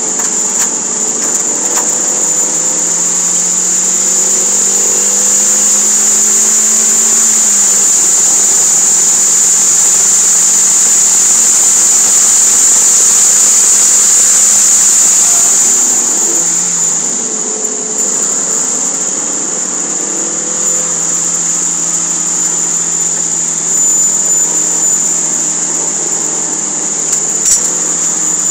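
Toyota MR2 Spyder's four-cylinder engine from inside the cabin under hard acceleration down a straight, with a step down in pitch about seven seconds in at an upshift. Past halfway it slows for a corner and the engine note drops, over a steady high-pitched whine and wind and road noise that are loudest at top speed. There is a single sharp click near the end.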